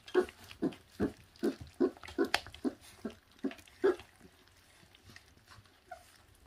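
Young puppies chewing and tearing at raw meat: a quick run of wet smacking, gnawing noises, about two or three a second, that goes fainter after about four seconds.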